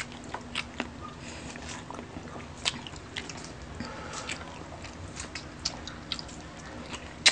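Close mouth sounds of someone biting and chewing squid: irregular wet smacks and small clicks, with one sharper click at the very end.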